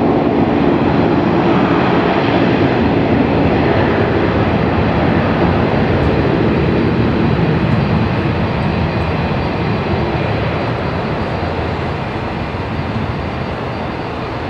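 Boeing 737-800's CFM56-7B turbofan engines at takeoff thrust: a loud, steady jet roar as the airliner accelerates down the runway, slowly fading over the last few seconds as it moves away.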